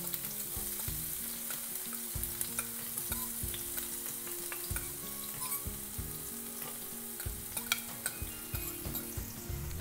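Finely chopped red onion sizzling as it drops into hot oil in a frying pan, being fried until pink. Scattered light clicks of a fork scraping the onion off a plate run through the steady sizzle.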